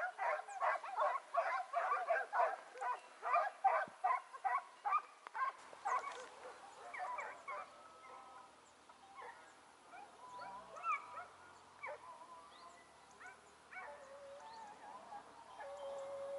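A pack of hare-hunting hounds baying on the chase, a rapid run of about three barks a second. About six seconds in the baying cuts off suddenly and only faint, scattered sounds remain.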